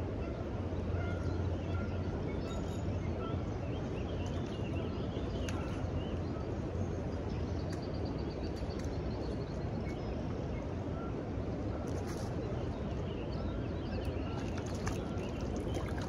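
Steady rush of river rapids, with faint short bird calls scattered over it.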